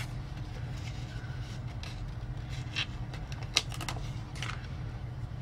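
Steady low hum of room noise with a few light clicks and taps, the clearest about three and a half seconds in.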